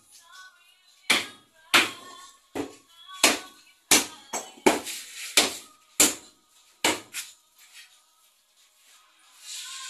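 Repeated hard blows of a hand-swung tool striking into packed soil and rubble, about one and a half strikes a second, stopping about seven seconds in.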